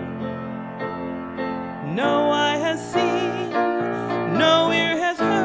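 A woman soloist singing a slow worship song with piano accompaniment. The piano plays alone for about the first two seconds, then her voice comes in with an upward slide and vibrato, rising into a second phrase near the end.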